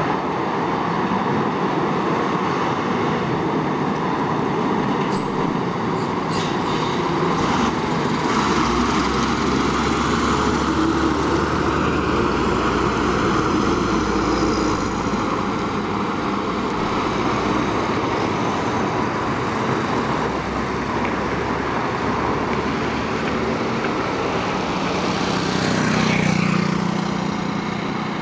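Fire engines driving past one after another, engines running with tyre and road noise, swelling about a third of the way in as the trucks pass close. A motorcycle engine comes up near the end.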